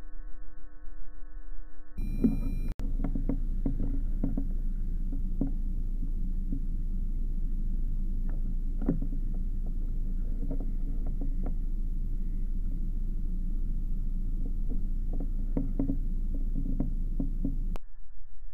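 Wind rumbling on an outdoor camera microphone: a steady low roar with scattered faint clicks and ticks. Tonal background music plays for the first two seconds and again briefly at the end.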